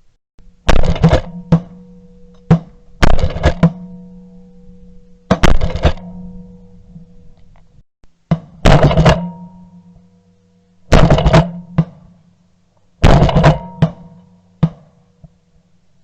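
Music with heavy, booming drum hits in clusters every two seconds or so, over held low tones.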